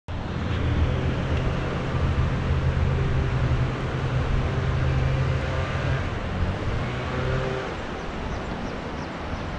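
An engine idling with a steady low hum that stops about seven and a half seconds in, over a steady rushing noise.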